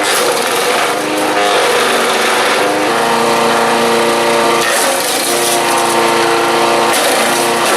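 7HP gasoline engine of a mini wood chipper shredder running at high speed, its note sagging briefly about five times as it takes load, with bursts of rasping noise from wood being chipped.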